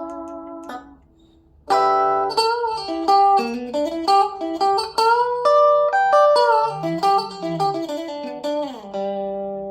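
Stratocaster-style electric guitar with three single-coil pickups (FABIO ST100 WH) played through a small FABIO G-10 combo amplifier. A chord rings and is cut off, there is a brief pause, then a run of picked single notes and double stops with a couple of bent notes near the end.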